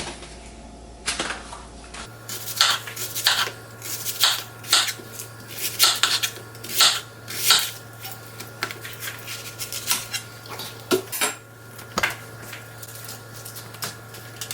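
Irregular clinks and taps of a shallow roasting pan as sliced onion rounds are laid flat across its bottom, over a steady low hum.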